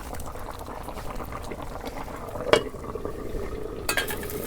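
Chicken pieces bubbling and sizzling in spiced oil and a little water in a karahi while being braised, with a utensil knocking against the pan twice, about two and a half and four seconds in.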